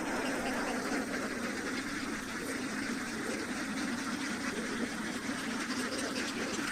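Ducks quacking, a steady stream of overlapping calls.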